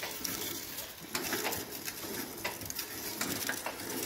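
13 hp single-cylinder Hatz diesel being turned over by hand with its decompression valve open: quiet, irregular clicks and knocks from the crank and engine as it spins without compression and without firing.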